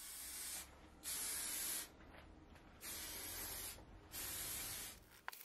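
Aerosol can of filler primer spraying in four short bursts, each under a second long, as a coat is laid onto a 3D-printed plastic speaker enclosure.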